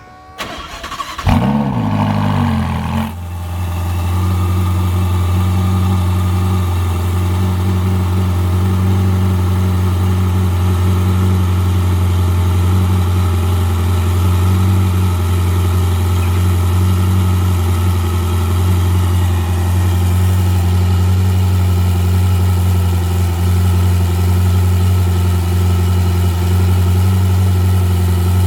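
Ferrari 488 Spider's twin-turbo V8 cold start: it cranks and fires about a second in, flares briefly, then settles within a couple of seconds into a steady idle.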